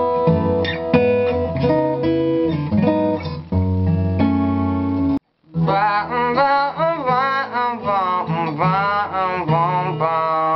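New Collings acoustic guitar being picked, several notes ringing together. After a short break about five seconds in, a voice sings with vibrato over the guitar.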